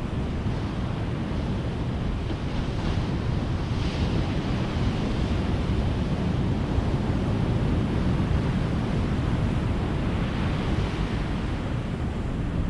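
Ocean surf breaking and washing on a beach: a steady rumble of waves, with swells of hiss as waves break about three to four seconds in and again near the end.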